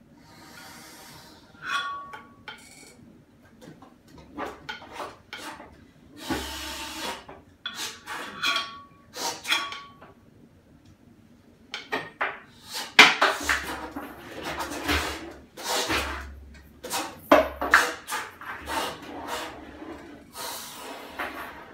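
Percussion objects on a tabletop being scraped, rubbed and struck in irregular clicks and scrapes, with a few short high tones. The playing grows busier and louder about halfway through.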